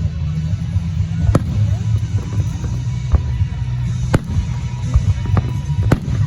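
Fireworks going off: about half a dozen sharp bangs at irregular intervals over a continuous low rumble.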